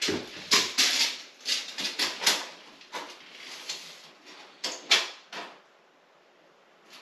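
A string of sharp knocks and short scrapes from a wooden vanity cabinet being handled while it is measured, quieting down about five and a half seconds in.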